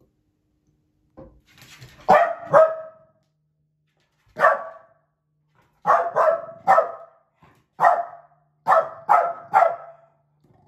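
Pembroke Welsh corgi barking repeatedly. There are about ten barks in quick clusters of two or three, starting about two seconds in.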